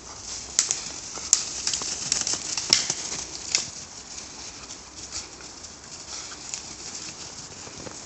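Steps crunching through thin snow over dry leaves and twigs, with a run of sharp crunches and snaps in the first half, then softer and sparser.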